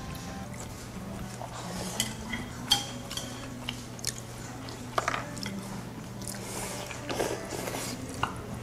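Eating at a table: chewing with a handful of short, sharp clicks and clinks of utensils against dishes, over a steady low hum.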